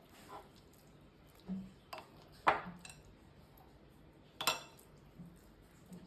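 Kitchen utensils and dishes clinking and knocking, several separate strikes, the sharpest about two and a half seconds in.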